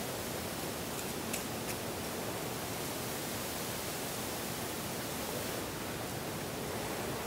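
Steady hiss with a few faint clicks about a second and a half in.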